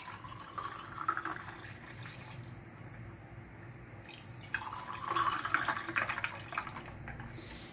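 Juice poured from a glass jug into a glass tumbler over ice cubes, a splashing, trickling stream. About four and a half seconds in, a second tumbler is filled the same way, louder.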